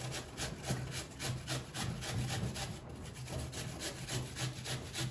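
An apple being grated on a flat metal hand grater into a plastic tub: a quick, even rhythm of rasping strokes, several a second.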